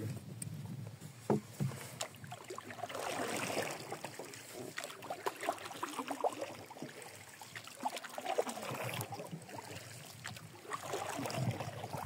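Water swishing around a small boat as it moves along, in uneven swells, with two light knocks about a second and a half in.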